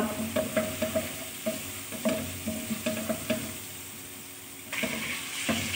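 Garlic and ginger paste frying in hot oil in a non-stick pan, stirred with a spatula that taps and scrapes against the pan several times a second. Near the end the sizzle gets louder as marinated chicken pieces are tipped into the hot oil.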